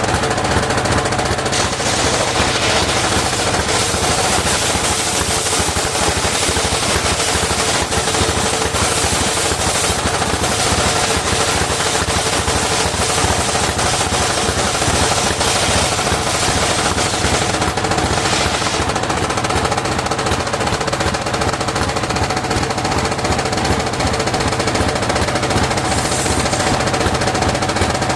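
Engine driving a sawmill circular saw, running continuously with a rapid, steady low chugging under the hiss and whine of the saw.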